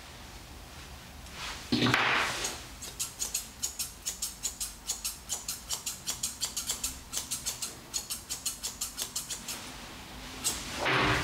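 Grooming shears snipping dog hair in a steady run of quick cuts, about four a second. A brief louder rustle comes about two seconds in and again near the end.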